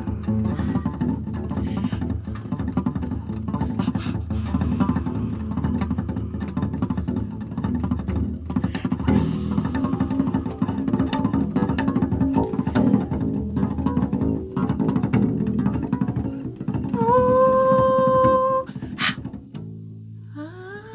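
Bass guitar plucked by fingers, playing a busy low-pitched line. Near the end a single held note with a short upward slide at its start rings for a moment and then stops.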